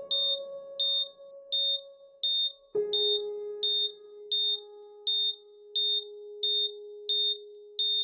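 Hospital patient monitor beeping steadily, a short high beep about every 0.7 seconds, marking the patient's heartbeat. Under it are two long low notes, one at the start and another about three seconds in, each fading slowly.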